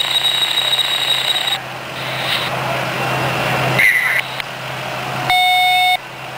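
Electronic alarm tones from fire apparatus over a steady low hum: a high steady whine for about the first second and a half, a short tone near four seconds, and a loud beep lasting under a second about five seconds in.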